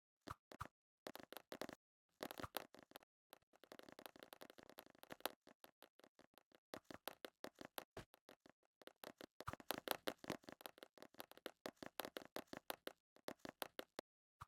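Faint, irregular clicking and crackling: single clicks and dense runs of rapid clicks, thickest in a few clusters.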